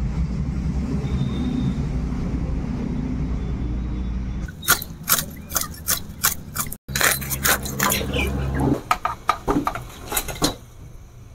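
A steady low rumble for about four seconds, then a quick run of sharp scraping clicks and metal clinks: fish being scaled with a blade and handled in steel pots and a wok.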